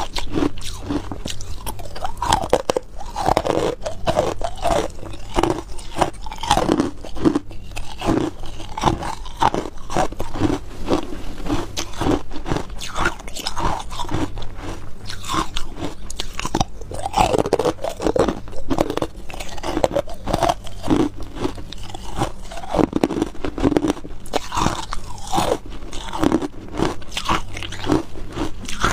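A person biting and chewing white, opaque frozen ice close to the microphone, crunch after crunch without a pause.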